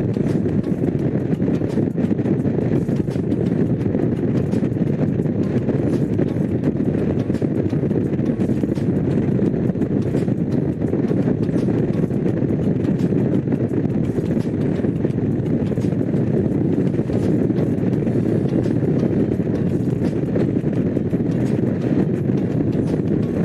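Honda CX500's liquid-cooled V-twin engine running steadily while riding, a constant low engine sound with no change in pace.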